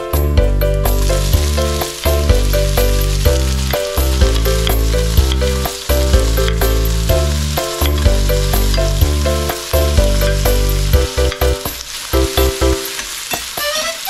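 Sliced onions and chopped garlic sizzling as they fry in a stainless steel wok, the hiss starting about a second in as the onions go into the pan, with background music throughout.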